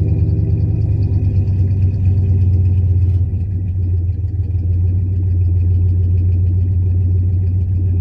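Ford 5.0 liter (302) V8 idling steadily through a true dual exhaust, still warming up after a cold start at around 34 degrees. The idle dips slightly in loudness about three seconds in and then comes back up.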